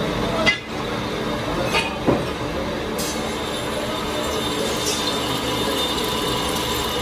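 Metal lathe turning steel: the cutting tool scrapes a steady squealing grind from the rim of a large spinning workpiece. A few short sharp clicks come in the first two seconds.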